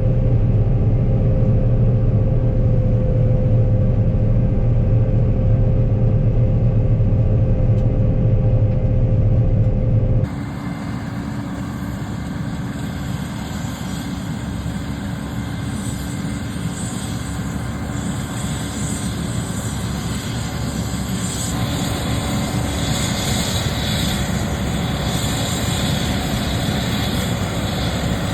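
Heavy farm machinery engine running steadily with a deep hum and a held tone. About ten seconds in it cuts abruptly to a different, brighter machine noise with more hiss, which slowly grows louder.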